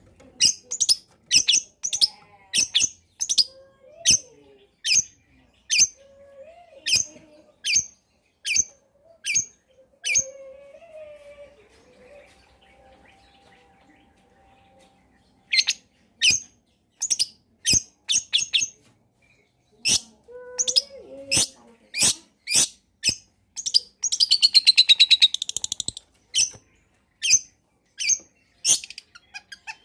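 Long-tailed shrike (cendet) calling: sharp, harsh notes repeated about twice a second in two long runs separated by a pause of a few seconds. Late in the second run comes a dense, buzzy rattling trill lasting about two seconds.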